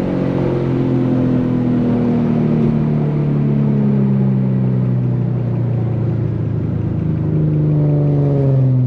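Infiniti G37's 3.7-litre V6 running through an ISR single-exit GT exhaust while driving. Its note slowly drops in pitch as the revs fall, then levels off and rises slightly near the end.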